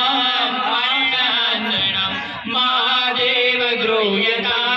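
A man chanting Sanskrit puja mantras in a sung, melodic recitation into a microphone, with a short breath break about halfway through.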